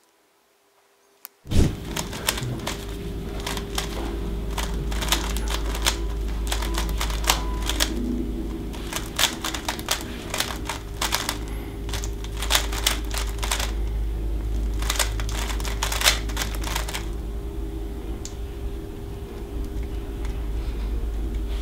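Rapid plastic clicking and clacking of a 3x3 speed cube being turned by hand, the layers snapping round in quick flurries over a steady low hum. The clicking starts about a second and a half in and thins out near the end.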